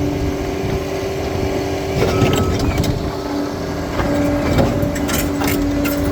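Bulldozer working on rocky ground: the engine runs steadily with a held whine, while a stream of sharp metallic clanks and knocks, the tracks and blade striking and scraping over stones, builds up from about two seconds in.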